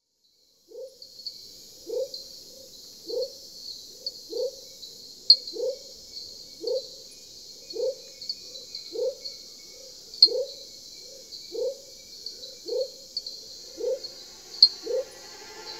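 Night-time animal chorus: a low, short rising call repeats about every 0.6 s, strong and weaker in turn, over a steady high chirping of insects. A few sharper, louder chirps stand out.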